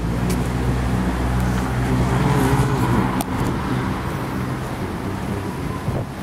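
A car engine running close by in street traffic, loudest in the first few seconds and then fading away, with a couple of brief clicks.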